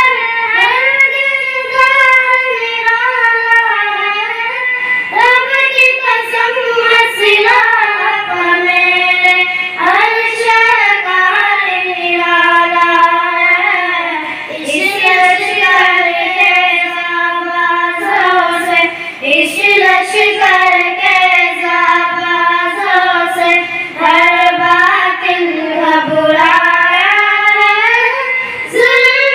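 Young girls singing a naat, an Islamic devotional song, together and unaccompanied, drawing out long notes with sliding turns and pausing briefly for breath.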